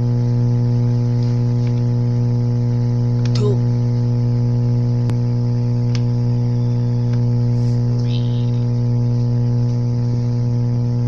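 Loud steady electrical hum, with a few faint clicks and a brief squeak.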